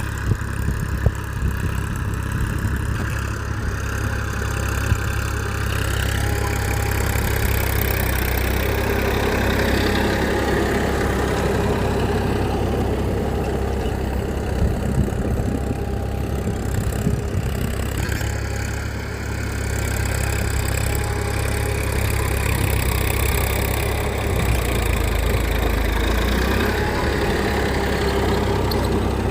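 An engine running steadily at idle, a low even drone with a few small clicks over it.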